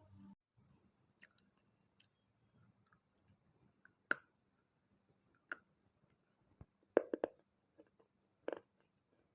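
Water-soaked fired clay from a small pot and saucer being bitten and chewed: sparse sharp crunches a second or two apart, with a quick cluster of crunches about seven seconds in.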